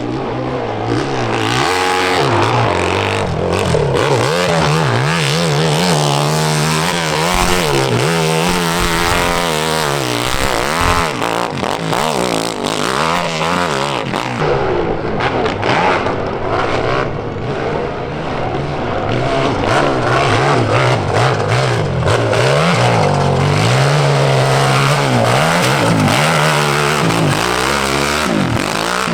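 High-horsepower nitro-fuelled hillclimb motorcycle engine, loud and revving up and down repeatedly. It eases off briefly about halfway, then revs hard again.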